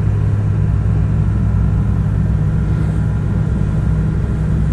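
Car driving at a steady speed, heard from inside the cabin: an even, low engine and road hum with no changes.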